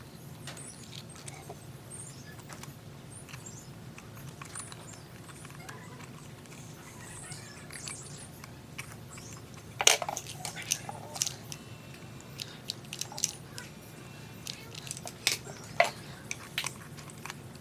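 Scattered small clicks, taps and knocks of parts and tools being handled on a workbench, the loudest a sharp knock about ten seconds in, over a low steady hum.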